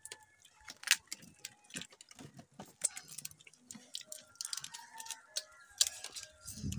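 Cooked blue swimming crab shells cracking and snapping as they are pulled apart by hand, an irregular run of sharp clicks.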